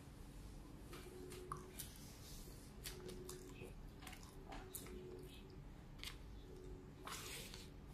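Close-miked eating of spaghetti with meat sauce: a plastic fork scraping and twirling noodles on a disposable plate, and wet mouth smacks and chewing, heard as scattered faint clicks, with a longer rustle about seven seconds in.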